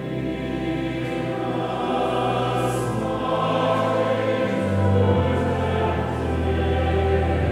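A choir singing a slow sung prayer over held low notes.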